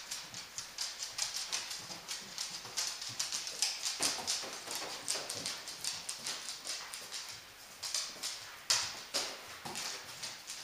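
Claws of several podenco dogs clicking on a hardwood floor as they walk and trot about: a quick, irregular patter of taps, with a few louder ones about four seconds in and again near the end.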